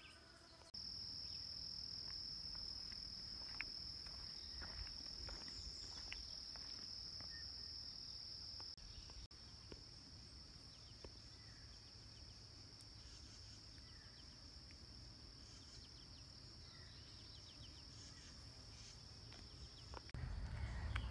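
Faint, steady high-pitched insect chorus, one unbroken drone that gets louder under a second in and drops back about nine seconds in, over a low rumble.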